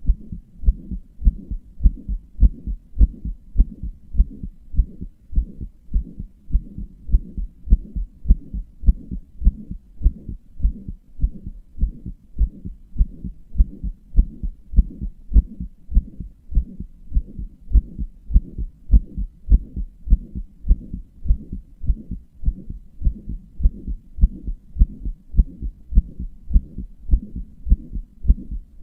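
A human heartbeat in a steady, regular rhythm of low, dull thuds, with a soft low whooshing between the beats. Its owner describes this heart as one that murmurs.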